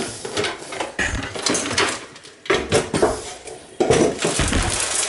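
Gutted sheet-metal computer case being lifted and tipped over by hand, its metal panels and loose debris clattering and clinking in several bursts.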